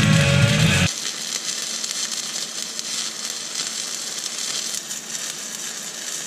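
Background music that cuts off about a second in, followed by a steady hissing noise.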